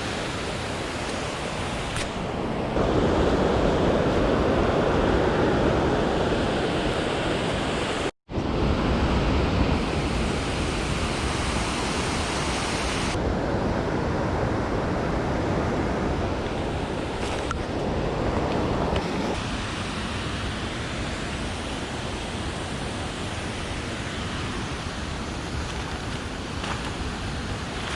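Rushing mountain stream: a steady wash of flowing water. It is louder and fuller for a stretch starting a few seconds in, breaks off for a moment near the middle, and changes abruptly in level a couple of times.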